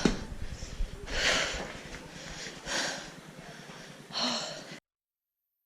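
A person breathing hard, three loud breaths about a second and a half apart, over a low rumble on the microphone. The sound cuts off abruptly near the end.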